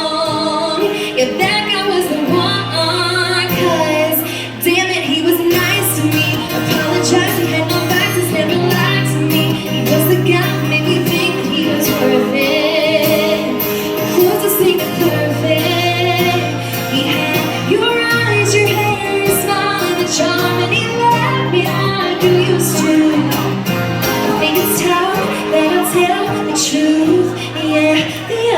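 Live band music with a woman singing, loud and unbroken throughout.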